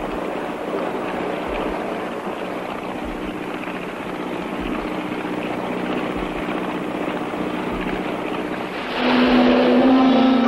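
A boat's engine running steadily, a low even drone with water noise. About nine seconds in, loud music comes in over it.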